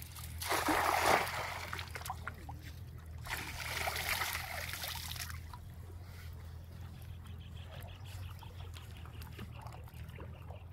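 Cast net landing on river water with a splash about a second in, followed by a second, longer spell of splashing and sloshing about three to five seconds in.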